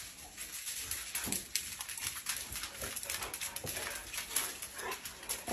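Dogs making faint sounds, a few soft whimpers among light, irregular clicking.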